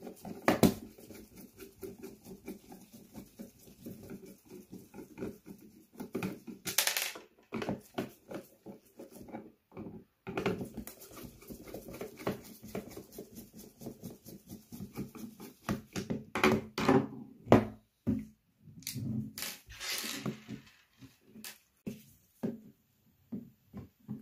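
Screwdriver prying at the plastic latches of a Wahl cordless hair clipper's housing: irregular plastic clicks, scrapes and creaks, with louder clicks about seven seconds in and again in the later part.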